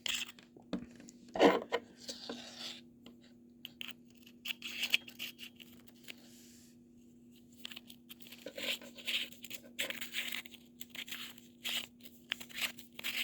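Hands handling a Fenix HT30R flashlight and a remote pressure switch as it is fitted: scattered clicks, scrapes and rustles. The noises go quieter for a couple of seconds past the middle, then pick up again.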